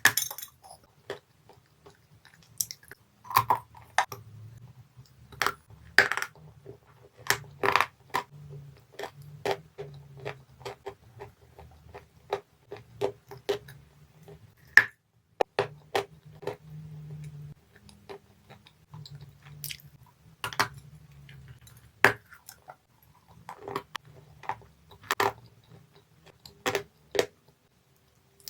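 Dry, chalky clay being bitten and chewed, with irregular sharp crunches and cracks, sometimes several in a second.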